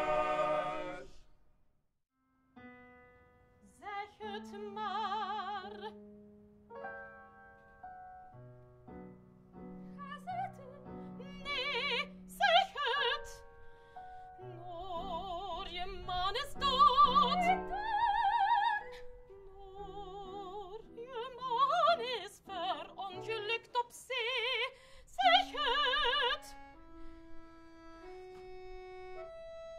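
A men's choir holds a final chord that breaks off about a second in. After a short pause, a woman sings operatic lines with strong vibrato over instrumental accompaniment, and the accompaniment plays a few notes alone near the end.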